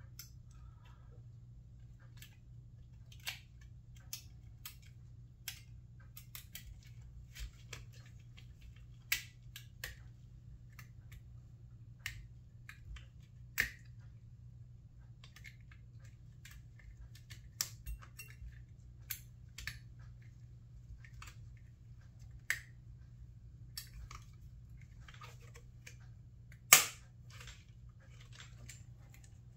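Scattered clicks and light knocks of plastic and metal copier fuser parts being handled and fitted together by hand, with one louder sharp click near the end, over a steady low hum.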